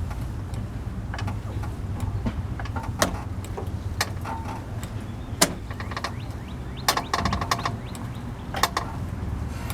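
Scattered metallic clicks and knocks, with a short ringing clatter of metal about seven seconds in, over a steady low hum.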